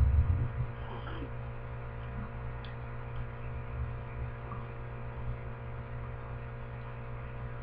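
Steady electrical hum, with a few low bumps in the first half second and a faint click a little before the middle.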